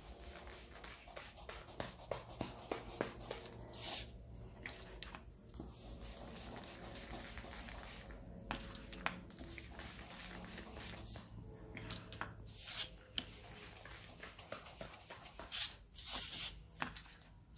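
Small foam ink applicator scuffing along the edges of a paper card as black ink is rubbed in, in many short strokes. Now and then a louder swish as the card is slid and turned on the craft mat.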